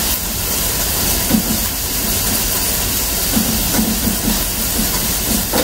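Steady, even hiss of background noise, about as loud as the speech around it, with a few faint short low sounds in the middle.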